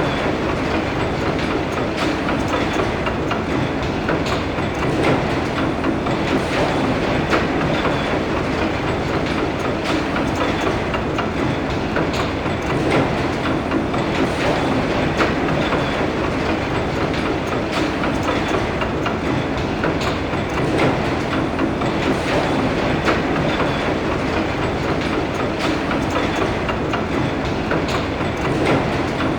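Imperial AT-AT walker engine noise sound effect: a steady mechanical rumble with a constant rattle of small clicks through it.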